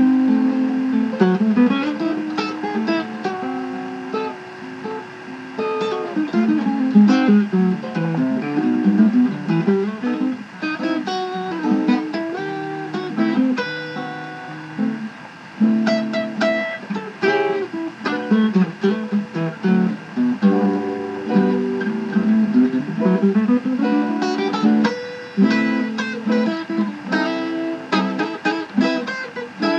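Instrumental background music: a plucked guitar melody.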